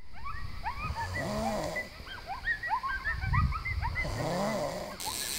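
A chorus of animal calls begins suddenly out of silence: many short chirps that rise and fall, layered over several deeper, drawn-out calls.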